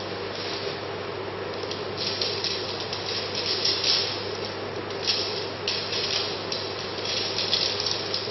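Nylon tent fabric rustling in irregular bursts as tent poles are handled and unfolded on it, over a steady hum of room noise.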